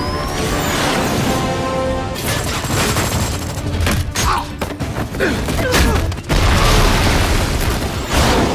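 Action-movie soundtrack: a loud film score with explosions and crashing impacts throughout.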